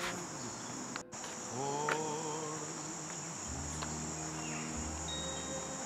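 Steady, high-pitched chorus of crickets and other insects, with a few long, held low notes over it and a momentary dropout about a second in.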